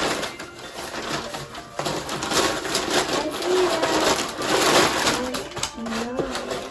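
Rustling and handling noises as packaging and items in a gift trunk are searched through, with many small knocks and scrapes.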